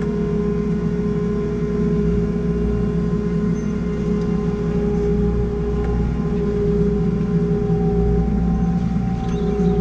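JCB Fastrac 4220 tractor's diesel engine running steadily, heard from inside the cab, with a steady whine above the engine drone and the level rising slightly near the end.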